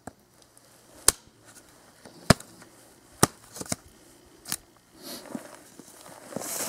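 Cold Steel Trail Hawk tomahawk chopping into a small piece of dead wood to split it: five sharp wooden knocks about a second apart, then a softer scuffing noise near the end.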